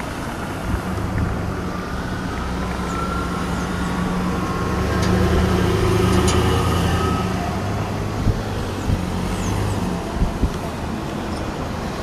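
A motor vehicle passing on the street, its low engine hum building, strongest around the middle, and fading away near the end. A few short knocks come in the last few seconds.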